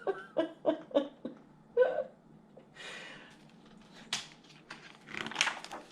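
A woman's voice imitating chattering teeth with a quick run of short clicking syllables, about five a second, lasting a second or so. A short rustling noise comes near the end.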